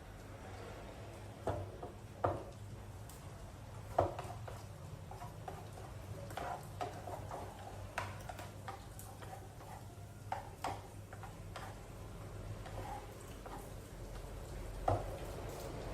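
Irregular light taps and clicks, a dozen or so scattered short knocks, over a faint steady low hum.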